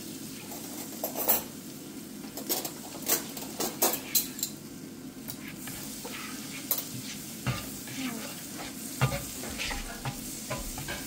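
Butter sizzling as it melts in a frying pan, with a spatula scraping and tapping against the pan as it is pushed around. The scrapes come thick and fast in the first few seconds, then more sparsely.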